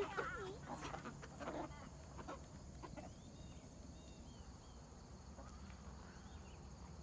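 Chickens clucking faintly in the first second or so, then a quiet outdoor hush with a few faint, short bird chirps.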